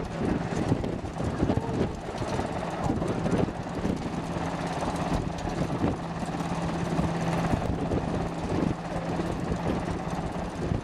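Sikorsky S-92 search-and-rescue helicopter hovering, its rotors and turbines giving a steady drone with a constant low hum beneath, mixed with wind buffeting the microphone.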